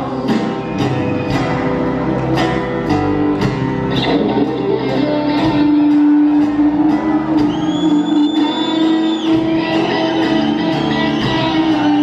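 Live band playing an instrumental passage with no singing: acoustic guitar strummed over drums and bass, with a long note held through the middle.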